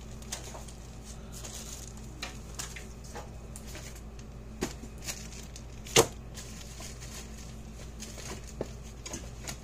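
Small parts being handled and sorted while searching for an electronic component: scattered light clicks and taps over a steady low hum, with one sharper knock about six seconds in.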